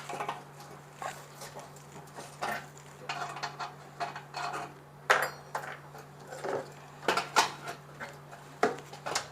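Irregular metallic clinks, taps and scrapes of hand tools working on metal nuts and terminals as the sterilizer's heating-element connections are loosened, over a steady low hum.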